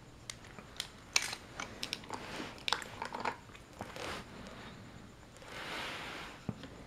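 Plastic toy trains and a toy figure being handled: scattered light clicks, taps and rustles, a soft hiss a little before the end, then a single low knock.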